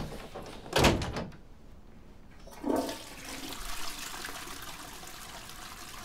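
A door thuds shut about a second in; then, after a clunk of the handle about three seconds in, a toilet flushes with a steady rush of water.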